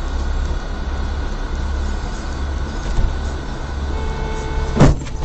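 Steady road and engine rumble heard from inside a moving car. About four seconds in, a car horn sounds for roughly two seconds as another car cuts across in front, with a sudden loud thump in the middle of it.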